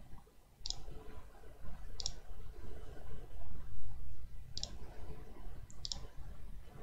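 Computer mouse button clicking, about four separate clicks a second or more apart, as points of a sketch line are placed.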